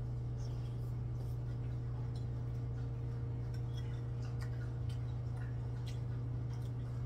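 Light ticks of a spoon and chopsticks against ceramic bowls, with quiet chewing, during a meal of sujebi. A steady low hum runs underneath.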